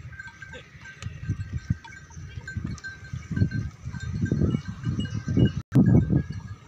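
Herd of water buffalo on the move, with animal calls over irregular low rumbling surges. The sound drops out for a split second a little before the end.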